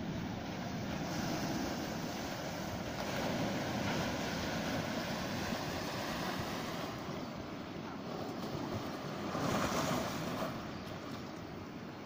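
Pacific Ocean surf washing among shoreline rocks: a steady rush of water that swells and eases, loudest about ten seconds in.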